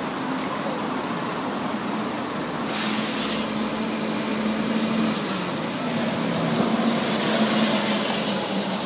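Diesel engine of a Volvo double-decker bus running as it comes up the bus lane and draws in close, its note wavering with the throttle. About three seconds in comes a short, loud burst of hissing air.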